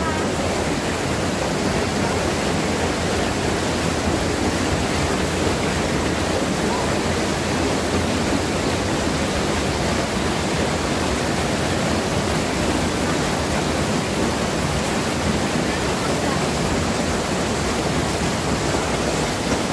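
Waterfall: a steady roar of falling water, even and unbroken throughout.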